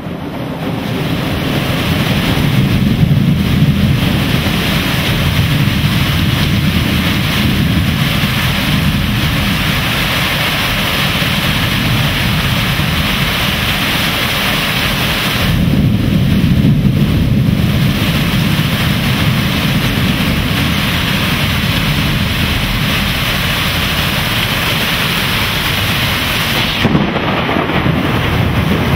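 Heavy thunderstorm: a torrential downpour pouring steadily, with deep thunder rumbling under it that swells about three seconds in and again just past the halfway mark.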